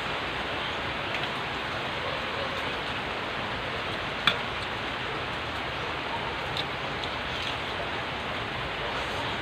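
Steady, even hiss with one sharp click about four seconds in and a few faint ticks.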